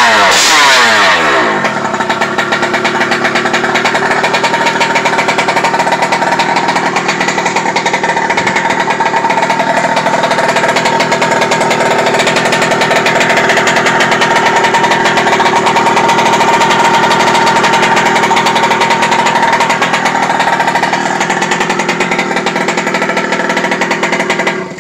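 Two-stroke gas engine of a Losi 5ive-T 2.0 large-scale RC truck, revving down in the first second or so and then idling steadily with a buzzy tone; it stops suddenly just before the end.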